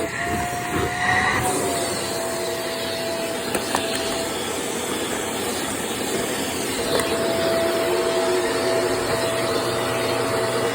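Vacuum cleaner running steadily as it is worked over carpeted stairs, a dense rushing hiss of airflow with a steady motor whine; the whine drops away for a few seconds mid-way and then returns.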